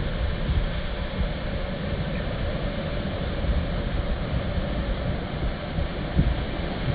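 Wind buffeting the microphone in an uneven low rumble over the steady wash of choppy surf breaking on the shore.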